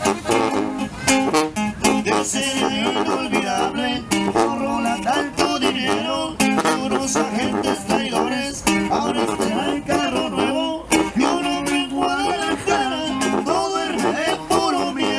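A live norteño-style band playing: an accordion carrying a quick, ornamented melody over sousaphone bass and a strummed guitar.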